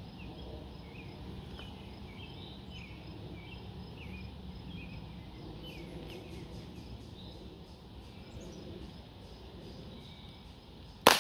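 Steady outdoor background with small birds chirping now and then, then, near the end, a single loud pistol shot from a 9mm CZ 75 P-01, a sharp crack with a short ringing tail.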